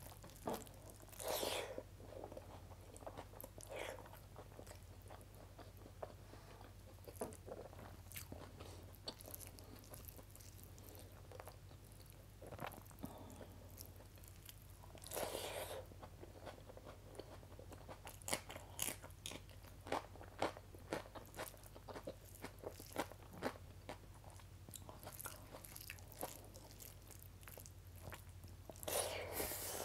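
Close-up eating sounds: fingers mixing rice into thick kadhi curry, with chewing and a string of small wet clicks. A few louder crunchy bites stand out, about a second in, midway and near the end.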